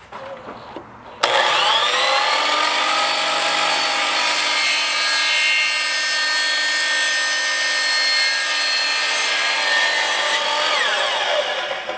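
DeWalt electric miter saw cutting a 3-inch PVC 90-degree elbow in half. The motor starts suddenly about a second in with a rising whine, runs steadily through the cut, and winds down with a falling whine near the end.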